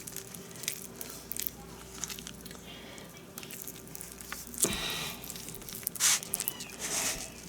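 Knife cutting raw chicken breast on a cutting board: wet squishing of the meat with small knocks and clicks of the blade and board, and a louder noise about five seconds in.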